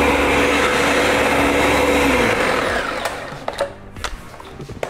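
Countertop blender running at full speed, pureeing chopped onion, pear, ginger and garlic. It is switched off a little over two seconds in and spins down, followed by a few light knocks.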